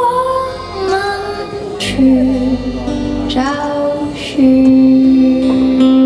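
Live band music: a woman singing with long held notes, accompanied by accordion, keyboards and bass.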